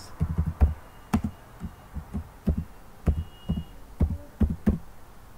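Computer keyboard being typed on: a run of irregular, dull key taps, about three or four a second, as a short line of text is typed.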